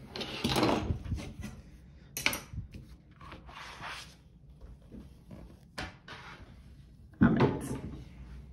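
Cutting mat being slid and lifted off a wooden desk, with scraping and rustling in the first second, then a few light clicks and handling noises. A sudden knock about seven seconds in is the loudest sound.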